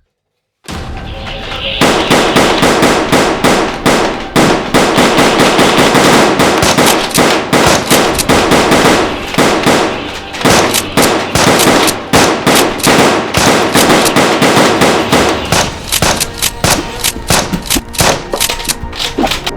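Rapid volleys of sharp gunfire-like shots, several a second, over background music, starting after a brief silence.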